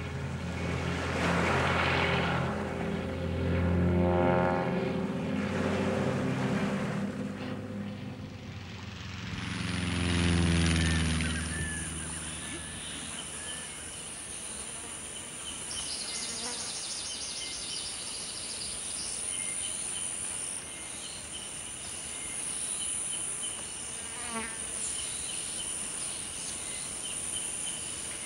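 Single-engine propeller plane flying low past, its engine drone swelling and fading, with the pitch sliding down as it passes about ten seconds in. After that, a steady high-pitched insect trilling carries on.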